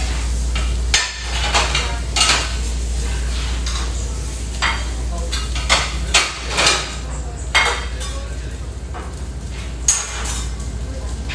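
Food frying on a restaurant flat-top grill over a steady low hum, with short clatters of metal utensils and dishes at irregular intervals.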